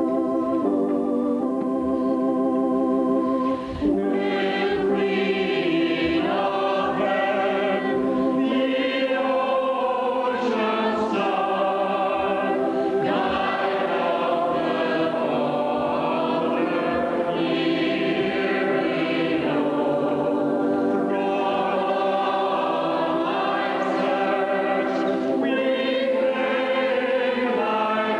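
Church organ playing, joined by a choir singing a hymn with organ accompaniment from about four seconds in: the closing hymn after the dismissal at the end of Mass.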